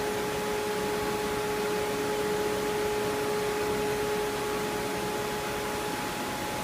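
CNC machining centre running: a steady hiss with a constant high whine, and a lower whine that cuts off near the end.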